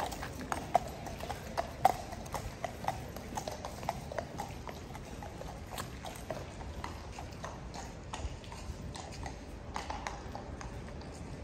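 Hooves of shod Household Cavalry horses clip-clopping at a walk on stone paving, in irregular strikes that are loudest in the first few seconds.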